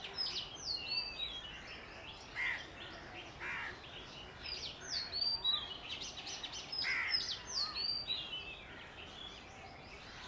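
Several wild birds calling and chirping, one repeating a high phrase of quick sliding notes a few times, over a steady outdoor hiss.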